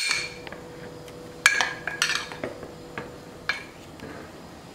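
Metal spoon clinking against a small bowl as flour is spooned out, a sharp clink at the start and then a run of lighter clinks about every half second.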